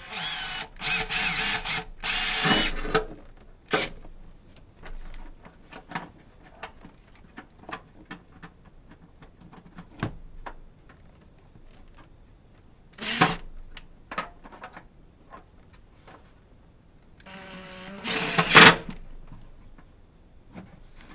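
Power drill making a pilot hole for a self-tapping screw: the motor whines in several short bursts over the first few seconds. Scattered clicks and knocks of handling follow, with a brief drill run at about 13 s and another at about 18 s.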